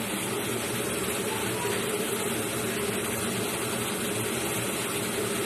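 Potatoes and bitter gourd frying in oil in a wok, giving a steady, even sizzle.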